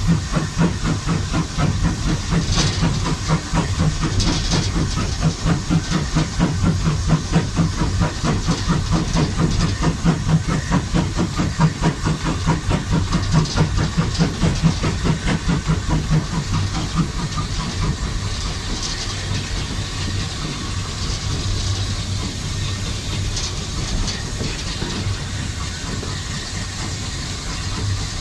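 Andrew Barclay saddle-tank steam locomotive 'Swordfish' heard from its own footplate, working along with quick, regular exhaust beats over a constant steam hiss. About seventeen seconds in the beats die away and it runs on with a steadier rumble and hiss.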